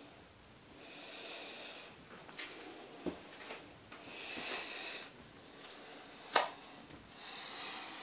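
Close, hissing breaths through the nose about every three seconds, each lasting about a second, with a few sharp clicks of the camera being handled between them; the loudest click comes about six seconds in.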